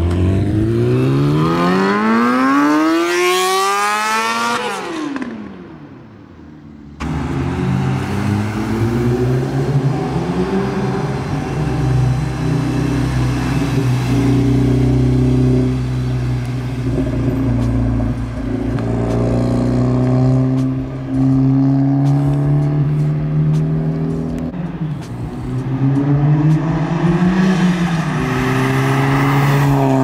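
Audi B8 A4's turbocharged EA888 four-cylinder, running a catless downpipe, accelerating hard past: the engine note climbs steadily with the revs, then drops sharply as the car goes by. After a break, the car runs past again under power, its revs rising and falling and climbing once more near the end.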